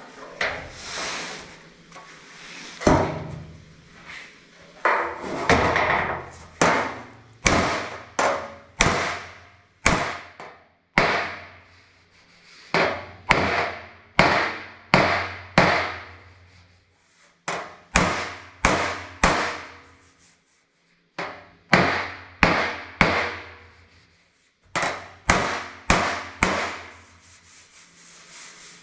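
Hammer blows on the steel sheet metal of a 1959 Chevrolet truck bed panel, knocking out a dent: about twenty sharp strikes roughly a second apart with short pauses, each ringing briefly.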